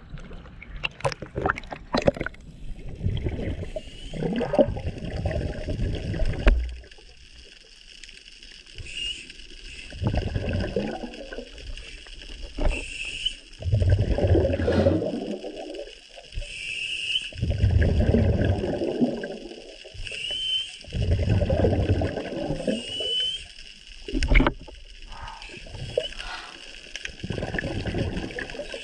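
Scuba diver breathing through a regulator underwater: exhaled bubbles gurgle and rumble in bursts every three to four seconds, with quieter gaps between breaths. A few sharp splashes at the surface near the start.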